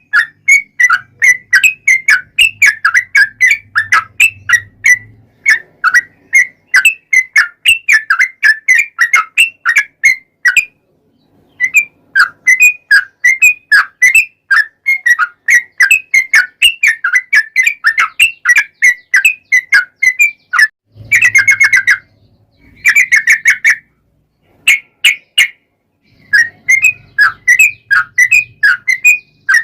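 Yellow-vented bulbul (trucuk) singing a long, rapid run of chirping, bubbly phrases, with a few short pauses. This is the 'ropel panjang' song used to lure caged birds into replying.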